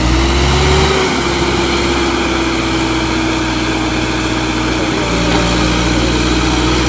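Diesel engine of an ACE 12XW hydra crane running steadily while the crane raises its boom, with a steady whine over the engine sound.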